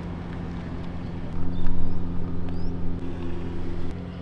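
Royal Enfield Himalayan's single-cylinder engine running steadily, getting louder from about a second and a half in until near the end.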